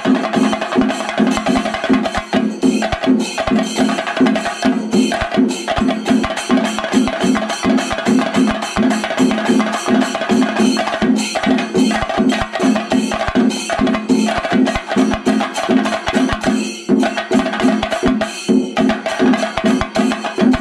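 Chenda melam: a procession ensemble of Kerala chenda drums with ilathalam brass cymbals, played in a fast, dense, unbroken rhythm.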